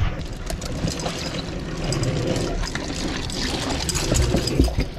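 Water sloshing and splashing in an ice-filled fish tub as a freshly caught mahi-mahi is handled in it, with scattered knocks.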